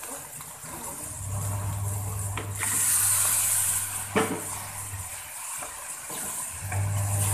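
Chunks of boiled beef dropped into a wok of hot frying spice paste, sizzling for about a second and a half, then a wooden spatula knocking once against the pan. A low steady hum runs under it.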